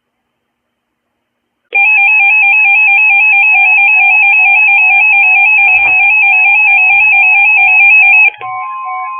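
Emergency alert tone: a loud electronic two-tone signal warbling rapidly, starting after a short silence and cutting off abruptly a second before the end, where a quieter steady tone takes over.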